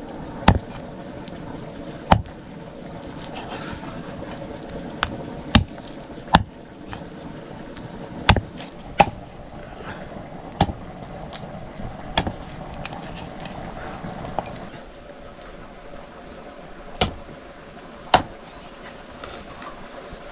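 Knife chopping on a cutting board in single, irregular sharp strokes, about one every second or two, over a steady background hiss that drops away about fifteen seconds in.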